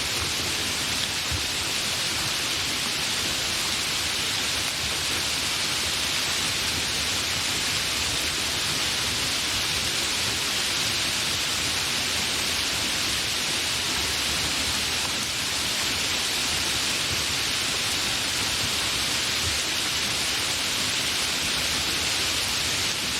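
Steady, fairly heavy rain falling without thunder, an even hiss with no single drops standing out.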